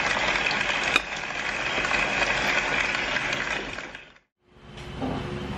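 Spoon and fork scraping and clinking on a ceramic plate during a meal, over a steady hiss, with one sharp clink about a second in. The sound fades out about four seconds in. After a brief silence, a different room tone with a low steady hum begins.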